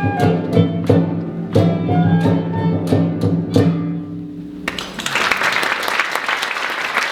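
Small early-music ensemble ending a medieval-style dance: a sustained low drone under a melody, with regular drum beats, stopping about two-thirds of the way through. Audience applause follows.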